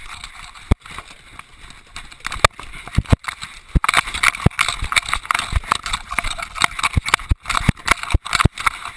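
GoPro camera slung on a running English setter, jostling and bumping: a rapid, uneven string of knocks and thuds from the camera and the dog's paws on wooden deck boards, with rubbing noise between them that grows busier about four seconds in.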